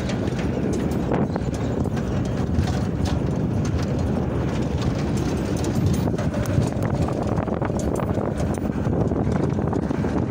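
Ute driving over rough paddock ground: a steady low rumble of engine and tyres, with a constant irregular rattling and knocking of the metal mesh cage and loose gear in its tray.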